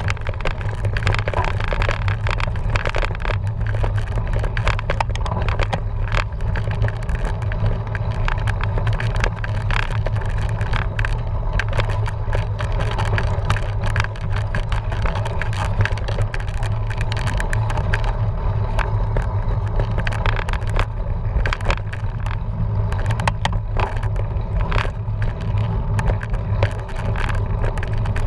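Cyclocross bike ridden over rough ground: a steady low rumble with constant rattling and clicking.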